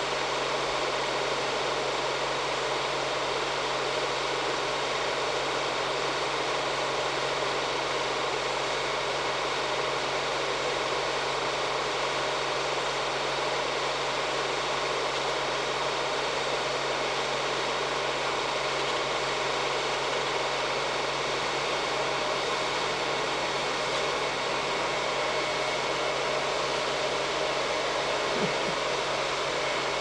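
Homemade 300-watt heat gun running steadily, its fan pushing air through the nichrome heater and out of the nozzle: an even airy rush with a low hum beneath it.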